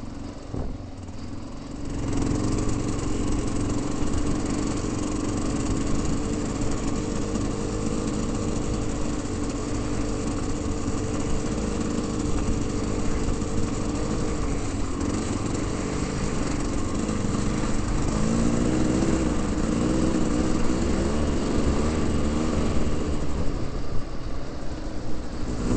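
Trail motorcycle engine running steadily as the bike climbs an icy dirt track, heard from a helmet camera with low rumble on the microphone; the engine pitch rises and falls a few times past the middle.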